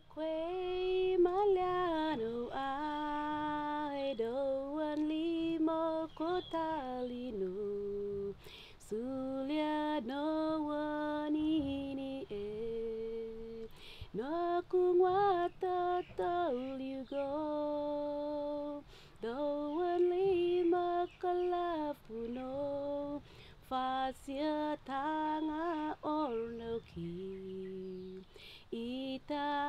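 A woman singing solo and unaccompanied, in phrases of held notes with short breaks between them.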